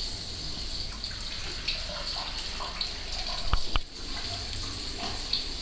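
Soup boiling hard in a pan: a steady bubbling with many small pops, and two sharp clicks about three and a half seconds in.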